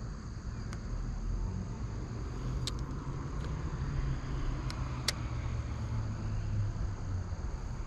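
Steady low rumble of road traffic, with a few sharp clicks scattered through.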